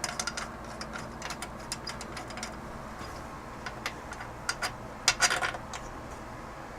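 Scattered light clicks and ticks of small metal bicycle hardware being handled as a dropout tension bolt is fitted with an Allen key, with a short cluster of clicks about five seconds in.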